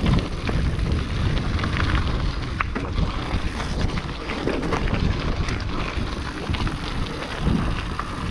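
Wind buffeting the camera microphone over the rumble of a mountain bike's tyres on a dirt and rocky trail, with frequent short clicks and rattles as the bike rolls over stones.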